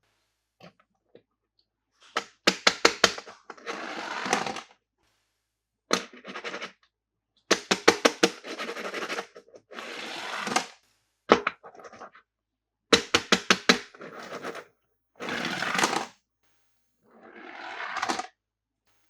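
Plastic toy packaging being handled and opened: quick runs of sharp plastic clicks and cracks, each followed by about a second of rustling, repeated several times.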